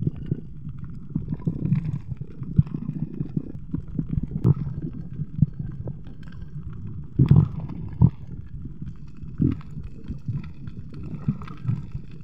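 Muffled underwater noise picked up by a camera held underwater: a low rumble with irregular thumps and knocks.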